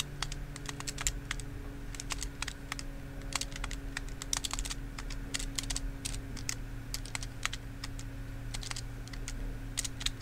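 Keys of a desktop calculator being pressed in quick, irregular succession: a run of short plastic button clicks as figures are entered.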